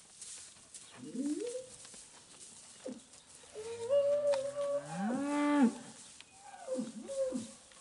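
Cattle mooing: a short rising call about a second in, a long call in the middle that climbs in pitch near its end and is the loudest, and a shorter call near the end.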